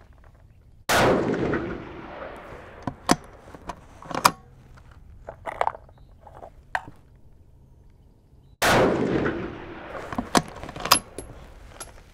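Two shots from a 6mm Creedmoor bolt-action rifle, about eight seconds apart, each report echoing and dying away over about a second under the range's roof. Short, sharp metallic clicks fall between and after the shots as the rifle is worked and reloaded.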